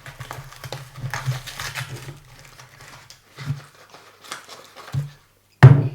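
Product packaging rustling and crinkling in irregular bursts as it is opened and handled, with a sudden louder burst of handling noise near the end.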